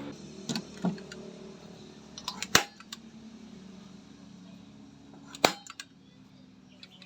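A few sharp knocks and clicks from hand work on building material, the two loudest about three seconds apart.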